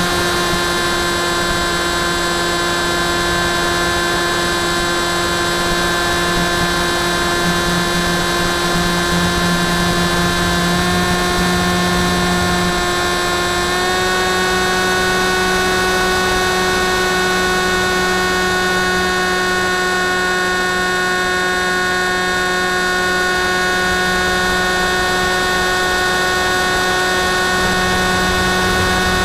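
Electric motor and pusher propeller of a Phantom FX61 flying wing, heard from the onboard camera in flight: a steady whine over wind rush, rising slightly in pitch about 14 seconds in as the motor speeds up.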